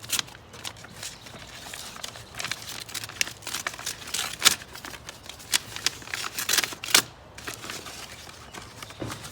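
A package being opened by hand: irregular rustling, crinkling and tearing of packaging, with sharp clicks and a few louder rips.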